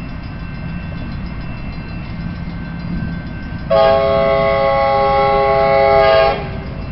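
Passenger train's multi-note air horn sounding one long blast of about two and a half seconds, starting about halfway in and cutting off sharply, over the steady low rumble of the train.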